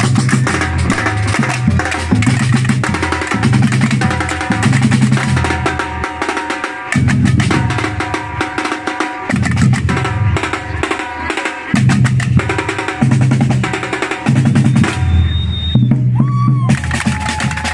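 Batucada drum group playing live: deep bass drums under a busy rhythm of drums and wood-block-like hits. Near the end the low drums stop for about a second and a half, then the full group comes back in.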